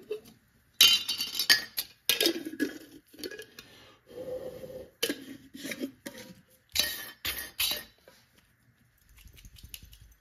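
Metal jar lid parts (screw band and lid disc) clinking and clattering against the glass jar and the workbench in a string of irregular knocks, as the jam-jar pulsejet's lid is taken off to swap in one with a smaller hole.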